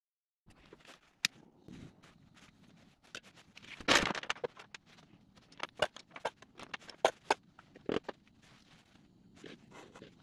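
Wax crayons being handled: light clicks and taps as they are picked up and set down on a wooden bench and stood in a metal tin, with one louder clatter about four seconds in.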